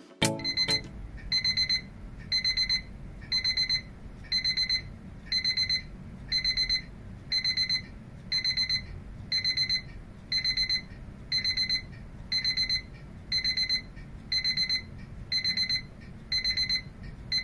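Seiko QHE146S quartz alarm clock's electronic alarm beeping: a high-pitched beep in bursts of four quick pulses, repeating about once a second at a steady level.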